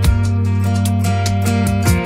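Background music: an upbeat track with plucked guitar over a steady beat.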